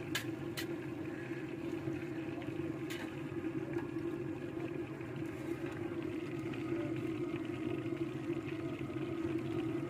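A perforated metal skimmer clinks against the rim of an iron karahi three times in the first few seconds. Under it a steady low mechanical hum, and faint crackle from the frying oil.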